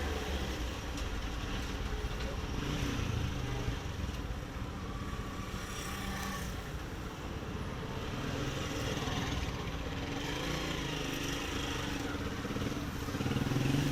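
Steady low mechanical rumble and hum with shifting background noise.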